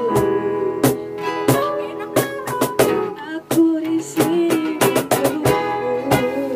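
A small band playing live: acoustic and electric guitars strumming with a keyboard, over a steady beat struck on a cajon.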